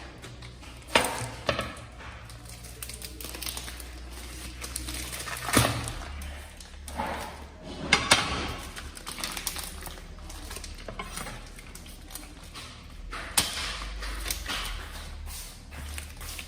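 A pestle pounding: several hard knocks at irregular gaps, with lighter clattering between them.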